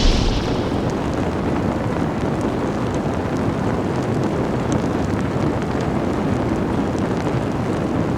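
The fading tail of a loud boom, then a steady low rumbling noise, like a running vehicle or wind, that holds at an even level.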